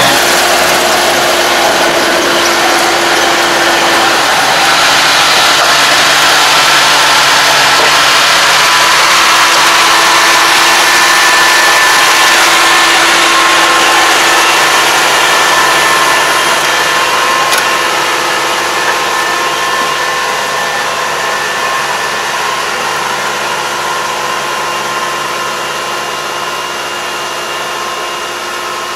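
Engine of an ARN460 combine harvester running steadily, a loud even mechanical drone with constant whining tones, growing somewhat fainter in the second half as the machine draws away.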